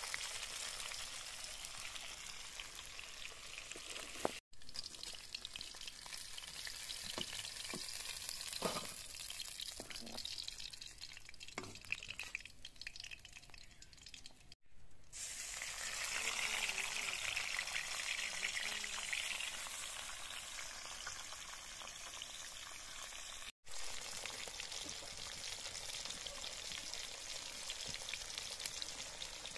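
Tilapia pieces sizzling as they fry in hot oil in a metal kadai, with a few knocks of a perforated metal slotted spoon against the pan.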